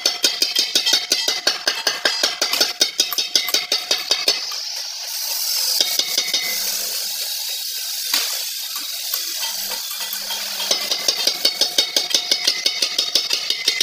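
Steel hammer handle worked inside a motorcycle's sheet-steel fuel tank through the filler neck to push a dent out from within: quick metallic knocks and rattles, several a second. In the middle they give way to a steadier scraping as the handle rubs along the inside of the tank, and the knocking returns near the end.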